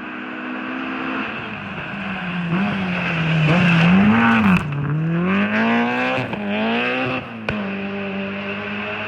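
Rally car engine revving hard: the pitch swings up and down, then climbs in several rising pulls as it gets louder toward the middle, with a sharp crack about seven and a half seconds in before it settles back to a steady note.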